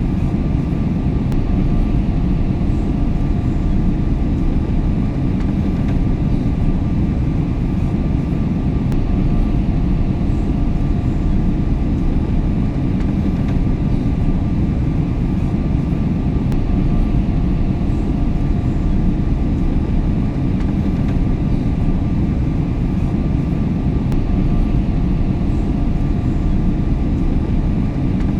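Airliner cabin noise in cruise flight: a steady, deep rushing hum of engines and airflow, with faint steady tones above it and no change throughout.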